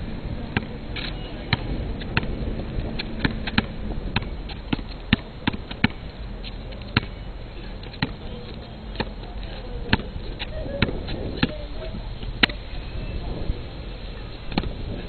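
Basketball dribbled on an asphalt court: sharp bounces in an uneven rhythm, about one to two a second.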